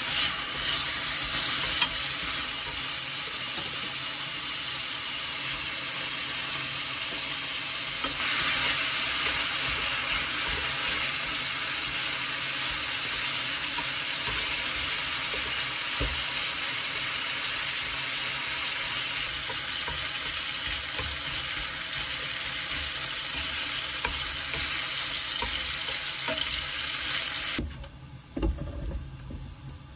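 Slices of pork jowl sizzling steadily as they fry in a pan, turned now and then with wooden chopsticks; enoki mushrooms join them partway. The sizzle stops abruptly near the end.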